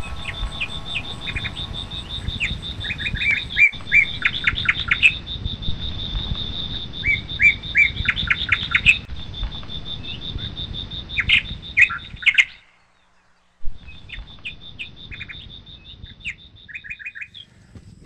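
Birds chirping in quick runs of short notes over a steady high-pitched buzz, with a low rumble underneath. The sound drops out completely for about a second two-thirds of the way through.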